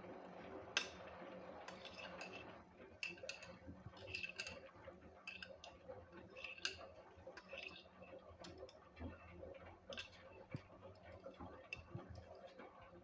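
LG WD-1054FB front-loading washing machine running: a faint steady hum under irregular light clicks and knocks, some with a short ring.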